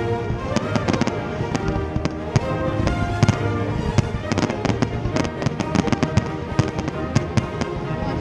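Fireworks popping and crackling in quick, irregular bangs, over background music with held melodic notes.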